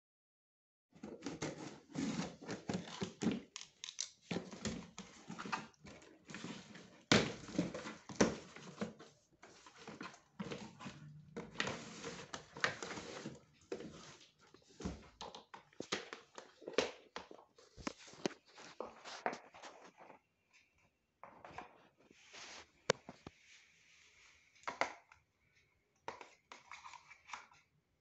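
Unboxing handling noises: scissors cutting the packing tape and the cardboard box being opened, then a hard plastic dish drainer rack and its cutlery holder being handled, with irregular scrapes, rustles and knocks. Busy for the first twenty seconds or so, sparser after.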